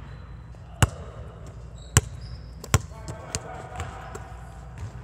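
Basketball bouncing on a gym floor, echoing in the large hall: three loud, sharp bounces roughly a second apart, then a few fainter knocks.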